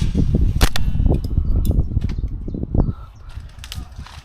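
Low rumbling and rattling from the player's gear and camera as he moves, with a few sharp cracks in the first two seconds. The rumble dies down after about three seconds.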